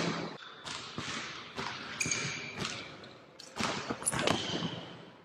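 A basketball bouncing on a hardwood gym floor during one-on-one play, irregular thuds that echo in the hall. Short high squeaks, typical of sneakers on the court, come about two seconds in and again near the end.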